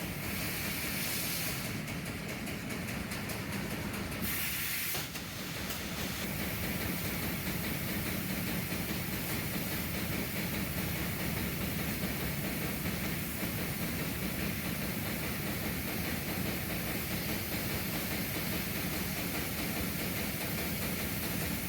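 Sheet-metal laser cutter running: a steady hiss over a low machine hum. About two seconds in comes a rapid ticking that lasts a couple of seconds, followed by a short, louder burst of hiss.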